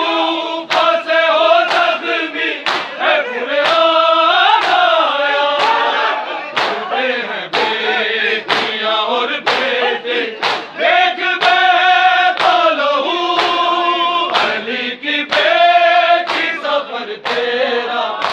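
A crowd of men chanting a Shia noha together in long held lines, over a steady beat of open hands striking bare chests (matam) about once a second.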